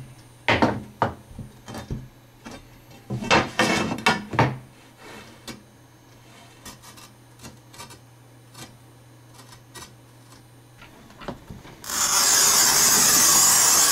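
Manual tile cutter working on a ceramic tile: sharp knocks and scrapes in the first few seconds as the tile is handled and split, then, about twelve seconds in, the loud steady scratching hiss of the cutter's scoring wheel pushed along the tile's glazed face for about two seconds.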